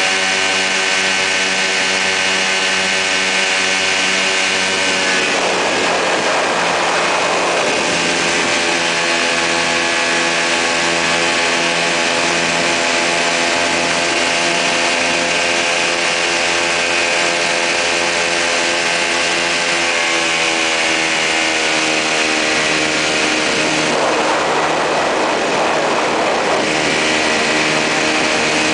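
Quicksilver MX ultralight's two-stroke engine and pusher propeller running steadily in flight. Wind rushes over the microphone twice, for a few seconds each, about a fifth of the way in and again near the end.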